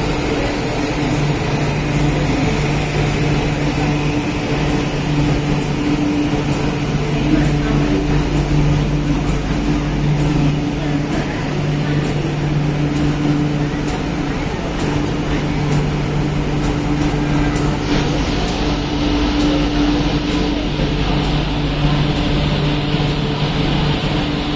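An MTR Kwun Tong Line Q-Train stands at the platform with a steady low electrical hum that cuts in and out every few seconds, over a constant rushing noise.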